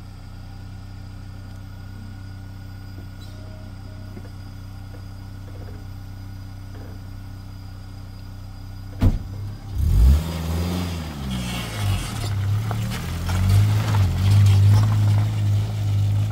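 Pickup truck's engine idling steadily. About nine seconds in there is a sharp knock, then the engine revs up and runs louder and uneven as the truck pulls away.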